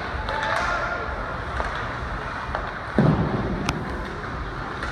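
Ice hockey game play in a rink: steady arena noise with scattered sharp clicks and a heavy thud about three seconds in, followed by a sharp tick.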